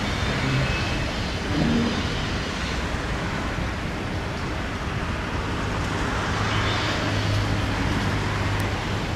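Steady outdoor background noise: a low rumble and hiss, with a low hum that grows stronger about two-thirds of the way in.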